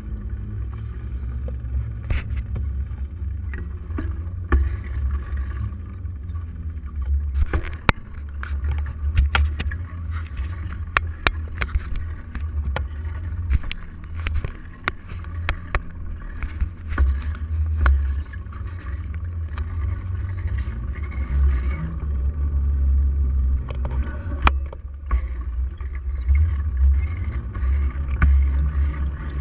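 Heavy wind buffeting and road rumble on a handlebar-mounted camera while riding a bike along a paved street, with frequent sharp clicks and rattles from the bike and mount over the road surface.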